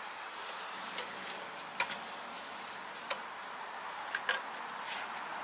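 Socket wrench on car wheel bolts as the wheel is bolted back on: a few light, scattered clicks, two of them close together about four seconds in, over a steady low hiss.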